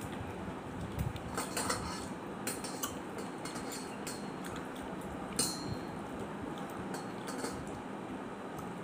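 Fingers mixing rice on a metal plate, with scattered light clinks and scrapes against the metal; the sharpest clink comes about five and a half seconds in.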